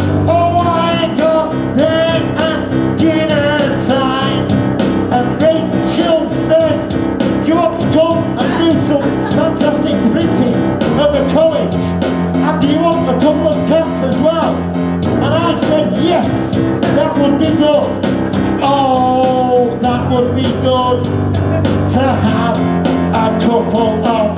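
Live music from an electronic keyboard: a steady rock-and-roll style backing with a wavering lead melody line bending in pitch over it.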